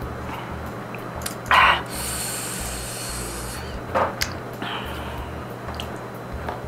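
A person breathing hard through the mouth and nose against the burn of very spicy noodles. A sharp loud breath about one and a half seconds in is followed by a long airy hiss, and two shorter breaths come about four seconds in.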